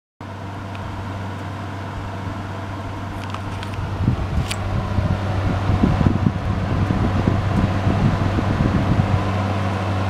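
Singer electric wall-mounted space heater running, its blower fan giving a steady rush of air over a low electrical hum. It gets louder from about four seconds in, with low rumbling.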